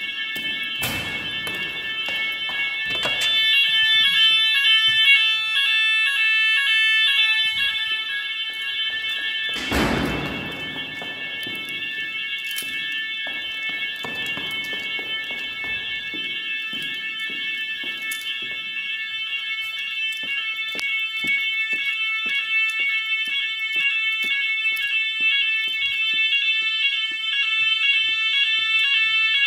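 Electronic evacuation sirens of a Chubb type 2a fire alarm system sounding the general alarm: a loud, continuous, repeating multi-tone pulse. A few thumps come over it, the loudest about ten seconds in.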